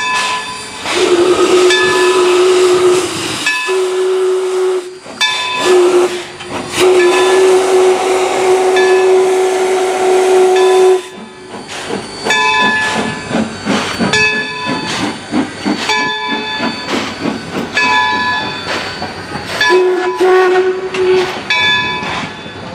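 Steam locomotive whistle blowing a series of blasts over the hiss of steam: a long one, a shorter one, a brief toot, then a long held blast that ends about eleven seconds in. Passenger coaches then roll past with a steady rhythmic clatter of wheels on rail joints, with one more short whistle blast near the end.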